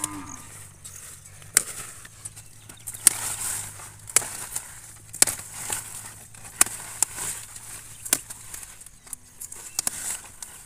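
Large green leaves being picked by hand: rustling foliage and a series of sharp snaps as the leaf stems are broken off, about a dozen irregularly spaced cracks.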